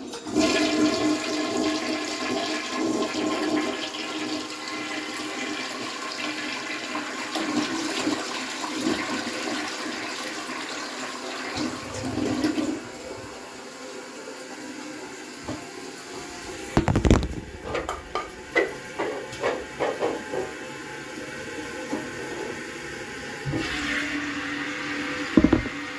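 A 1983 American Standard Plebe toilet flushing: a loud rush of water that eases off after about twelve seconds. A series of knocks follows about 17 to 21 seconds in, and a steady hiss of water picks up again near the end as the tank refills.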